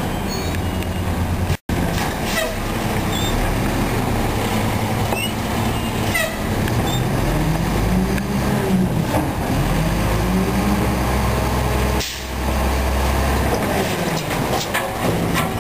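McNeilus front-loader garbage truck's diesel engine running, revving up and back down in the middle as the hydraulics lift its Curotto Can over the cab, with a few metal clanks. The sound cuts out for an instant near the start.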